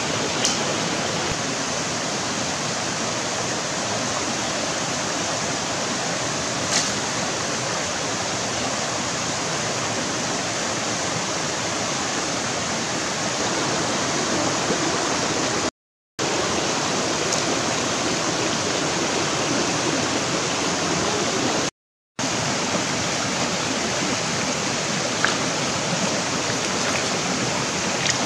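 Shallow rocky stream running over stones, a steady rush of water with a few faint clicks on top. The sound cuts out to silence twice, briefly.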